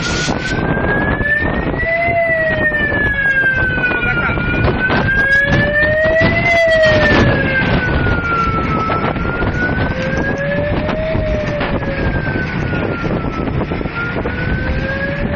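Emergency vehicle siren wailing, its pitch slowly rising and falling about every four to five seconds, over heavy wind buffeting the microphone.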